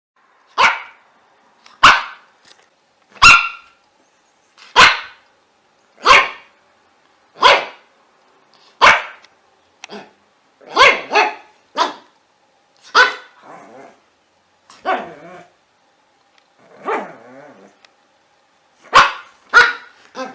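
A dog barking: single sharp barks at a steady pace of about one every second and a half, then quicker pairs of barks, and one longer, lower bark about three-quarters of the way through.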